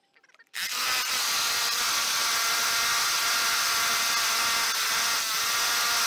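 Hammer drill with a 4 3/8-inch Milwaukee core bit boring into a concrete curb. It starts about half a second in and runs loud and steady, a whine over grinding noise.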